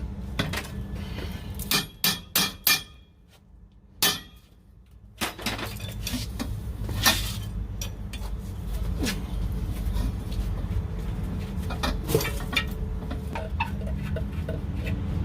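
Sharp metal-on-metal strikes and clanks from tools on steel suspension parts: a quick run of about four strikes about two seconds in, then single knocks spaced several seconds apart. A steady low hum runs underneath and drops out briefly around the third to fifth second.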